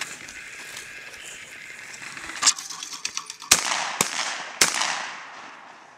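Shotgun fired three times in quick succession, about half a second apart, at clay targets, each shot with a trailing echo. A lighter, sharp snap comes about a second before the first shot.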